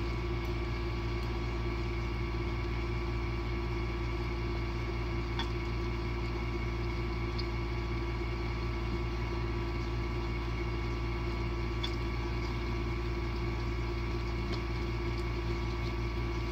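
A steady low mechanical hum with a few fixed tones in it, unchanging throughout, with a few faint clicks of a spoon and fork against the food box.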